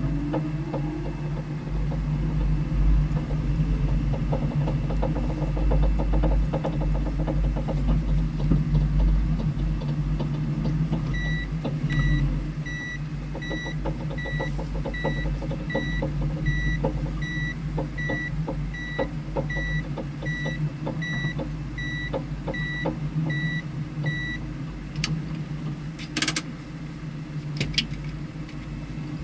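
A car's engine running steadily, with an electronic warning chime beeping about one and a half times a second for some thirteen seconds in the middle. A few sharp clicks follow near the end.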